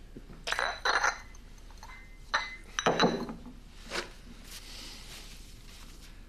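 Porcelain coffee cup and saucer clinking against each other and the table about five times, the loudest near the middle, as the cup is handled and set down.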